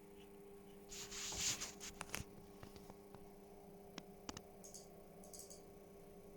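Scattered computer mouse clicks, with a brief scraping rustle about a second in, over a steady low hum.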